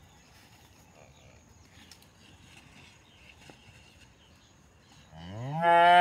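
A cow mooing once near the end: a long call that rises in pitch, then holds steady.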